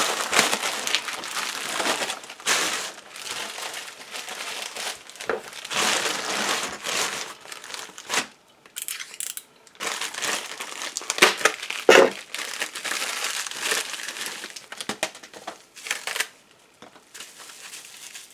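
Packaging crinkling and rustling in irregular bursts as block magnets are unwrapped by hand, with a few sharp clicks about two-thirds of the way through.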